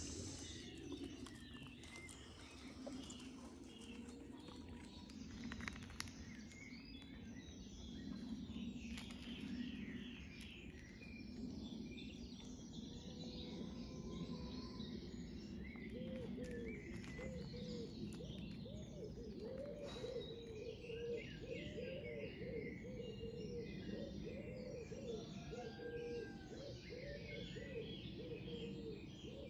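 Outdoor birdsong: small birds chirping throughout, and from about halfway a pigeon cooing over and over in low, rounded notes.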